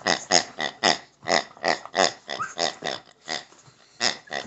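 Orange rubber pig dog toy giving short grunting oinks as it is squeezed, about three a second in an uneven run, with a brief lull near the end.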